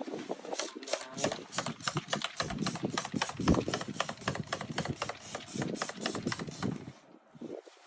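A rapid, uneven run of sharp mechanical clicks and rattles, several a second, pausing briefly about seven seconds in.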